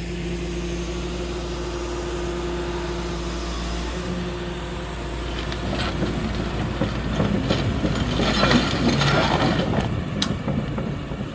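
Doosan DX235LCR-5 excavator's diesel engine running with a steady hum. About halfway through, irregular metallic clattering and clanking builds up over it, loudest a couple of seconds before the end.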